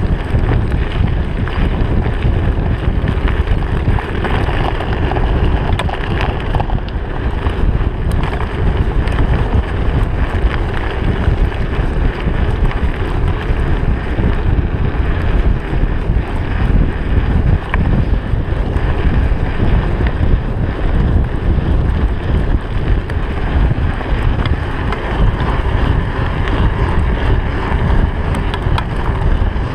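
Wind buffeting an action camera's microphone on a fast mountain-bike descent, a loud steady rush, with the Trek 4500's tyres crunching over a gravel road and the bike rattling in a steady run of small clicks.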